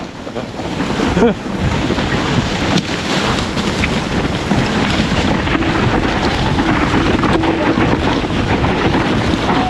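Mountain bike descending a loose loam trail at speed: a steady rush of wind buffeting the microphone, with tyres and bike rattling over the ground throughout.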